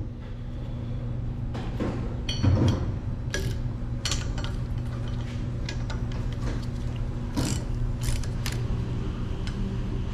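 Hand tools working on metal, including a ratchet wrench, make scattered short clicks and taps while nuts on a fire hydrant stem coupling are tightened. A steady low hum runs underneath.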